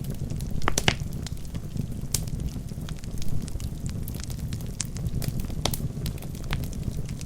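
Wood fire burning in a fireplace: a steady low rumble of flames with frequent sharp crackles and pops from the burning logs, a cluster of louder pops about a second in.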